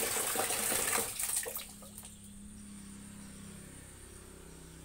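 Water running and splashing, cutting off about a second in, then a faint steady low hum.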